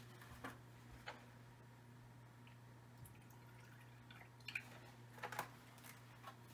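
Milk poured from a plastic gallon jug into a glass measuring cup, faint, with a few light clicks and knocks from handling the jug and its cap; the pouring and knocks cluster a few seconds in.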